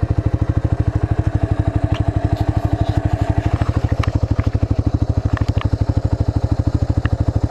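Trike engine running steadily, an even throb of about a dozen pulses a second, with a few light clicks over it.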